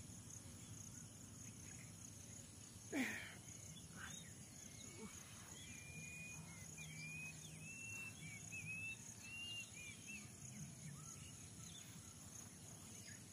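Faint rural ambience: a steady high insect drone, with a run of short, high chirping calls from birds in the middle. About three seconds in, one brief louder sound sweeps steeply down in pitch.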